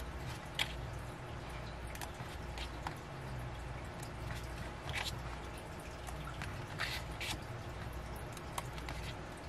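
Album contents being handled: scattered small clicks, taps and light rustles of photocards and paper inserts, over a low steady hum.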